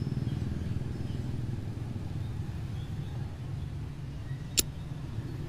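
Steady low rumbling drone, with a single sharp mouse click about four and a half seconds in.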